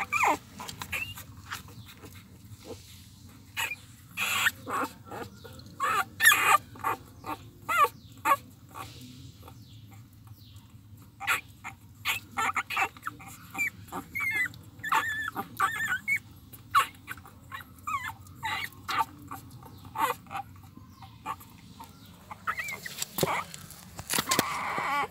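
Newborn puppies nursing, making many short high-pitched squeaks and whimpers in scattered bursts, mixed with sharp little clicks. There is a brief rustling burst near the end.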